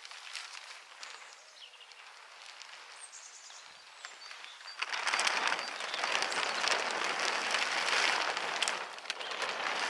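Large black plastic tarp rustling and crackling as it is dragged and flipped over. It is soft at first, then much louder from about five seconds in as the sheet is lifted and turned, with a brief dip near the end.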